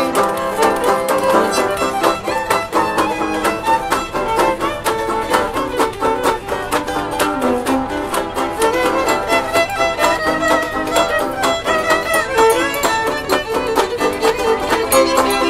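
Old-time string band playing an instrumental break: fiddle carrying a fast lead over guitar, mandolin and banjo, with a washboard scraping the rhythm.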